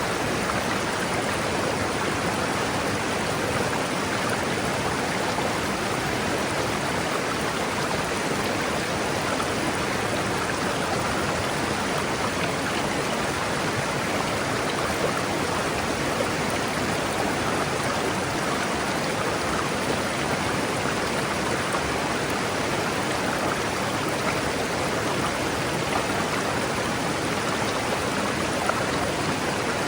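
River water rushing steadily over rocks, a constant even wash of noise.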